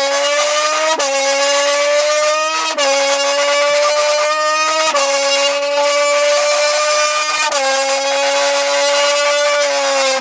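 Car engine running at high revs under fast driving, one steady high engine note with sharp breaks in pitch every two to three seconds, like gear shifts.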